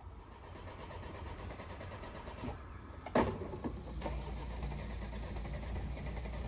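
BMW hatchback engine running low and steady beside flood water, with a sharp knock about three seconds in, after which the engine's hum is louder and steadier.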